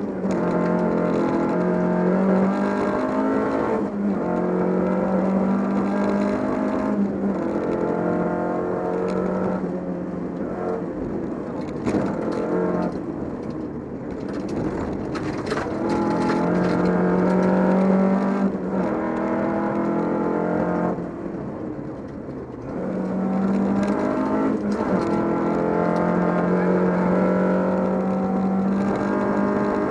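Volvo 242 rally car's engine held at high revs, heard from inside the cabin, with short drops in pitch and loudness every few seconds at gear changes and lifts for corners. Gravel clatters against the underside of the car.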